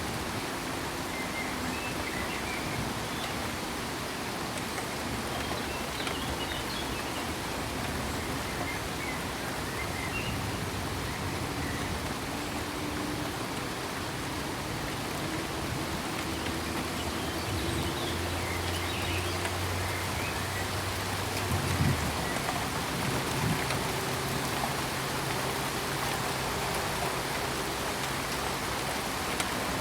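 Steady rain falling, an even hiss of drops on surfaces, with one brief louder spike about two-thirds of the way through.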